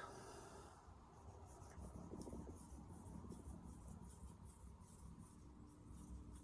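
Carbon-steel santoku blade stroked back and forth on a wet whetstone: faint, rhythmic scraping strokes, about three a second.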